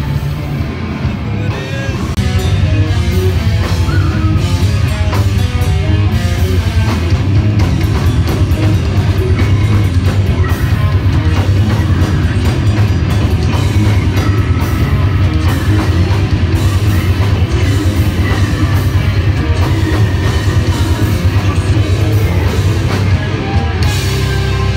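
A death metal band playing live, recorded from the crowd in a club: loud, dense distorted guitars and drums. The music steps up to full volume about two seconds in.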